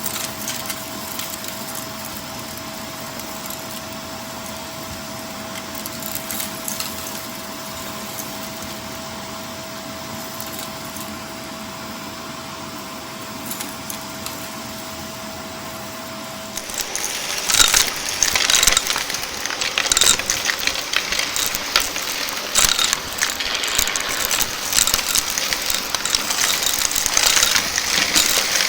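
Shark vacuum cleaner running with a steady hum and a thin whine. About two-thirds of the way through the whine stops, and the sound turns louder and crunchy, a dense crackle of small debris rattling up the suction.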